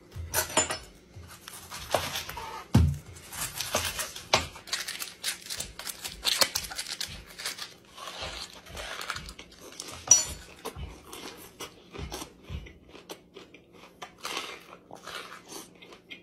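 A whole raw onion being peeled and bitten into: irregular crackling of the papery skin and crisp crunching and chewing of the raw onion.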